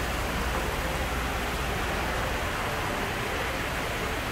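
Steady rush of water from an artificial waterfall spilling over rocks into a display pond.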